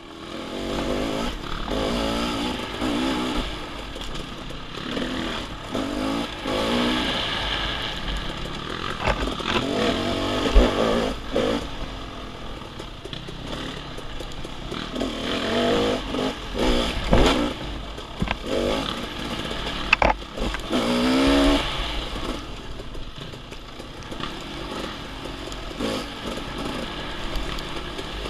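Off-road dirt bike engine revving up and down as it is ridden over a woods trail, with a few sharp knocks and clatter from the bike over rough ground.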